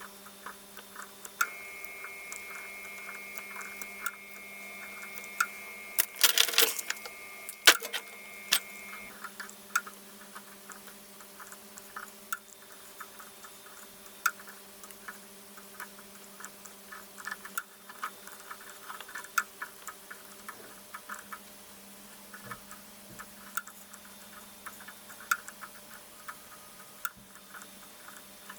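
Flux crackling and ticking in small irregular pops as old solder is removed from an AM2 CPU socket's pins for reballing, with a louder burst of crackling about six seconds in. A steady high tone sounds alongside it for the first several seconds.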